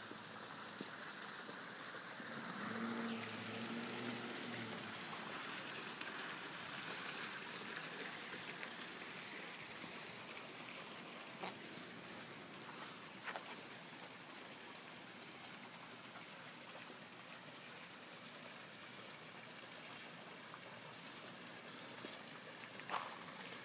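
Steady, even rush of water running over rocks in a garden stream, with a few faint clicks.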